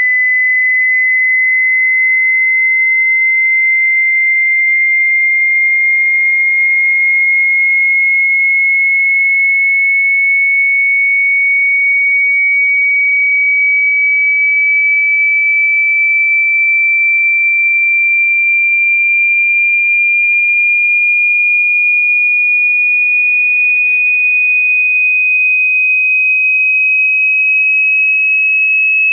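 Electronically generated pure sine tone in a speaker-test frequency sweep, a single high, thin tone gliding very slowly and evenly upward in pitch at a steady level.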